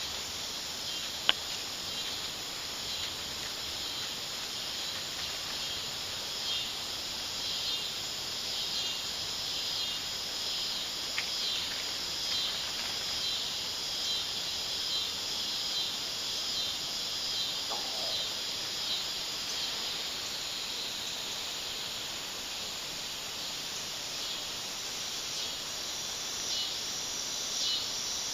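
A chorus of insects keeps up a steady, high, pulsing buzz, with a single sharp click about a second in.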